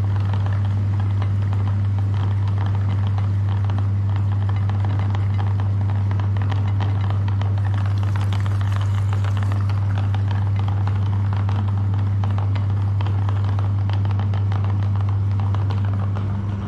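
Electric meat grinder running with a steady deep motor hum, with crackling and rattling from the material going through it.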